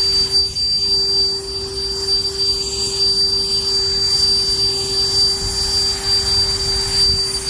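HVAC unit running steadily: an even whooshing hum with a steady low tone and a steady high whine.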